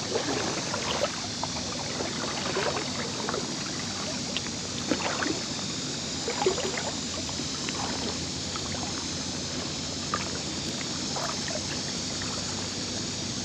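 Someone wading in a shallow creek, with irregular sloshes and splashes of water against their legs, over a steady background rush.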